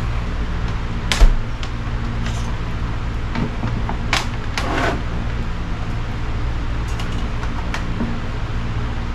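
Steady low hum with a few knocks and clicks of things being handled; the loudest is a sharp knock about a second in.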